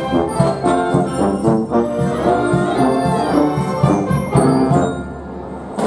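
A high school wind band playing live: flutes, clarinets, saxophones and sousaphones together over a regular beat, easing quieter about five seconds in.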